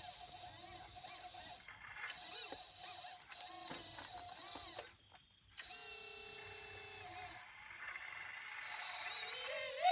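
Small electric hydraulic pump and motors of a 1/14 scale RC excavator running with a steady high whine. The whine cuts out for about half a second midway, and its pitch wavers near the end as the load changes.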